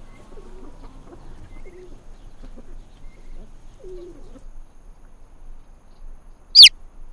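Domestic hen clucking softly in short low calls over the first few seconds. Near the end a chick gives one loud, sharp peep that falls in pitch.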